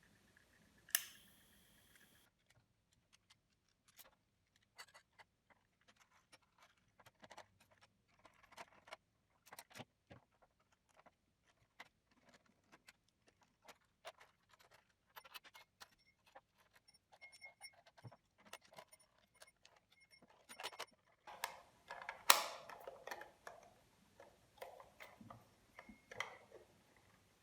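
Faint small clicks and rattles of an IKEA DEKAD alarm clock being handled and its hands set, with a sharp click and short ring about a second in. A run of light, evenly spaced ticks comes in around the middle, and busier, louder handling follows near the end.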